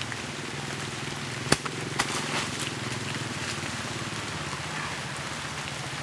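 Steady hiss of light rain falling on the yard, with a low steady hum underneath. Two sharp taps come about a second and a half and two seconds in.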